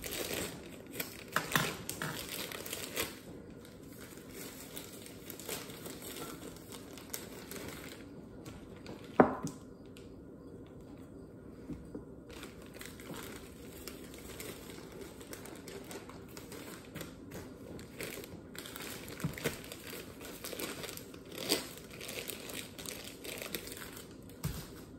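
Plastic bag of dark brown sugar crinkling and rustling as it is handled, sugar is scooped from it into a measuring cup, and its top is twisted shut. A single sharp knock about nine seconds in.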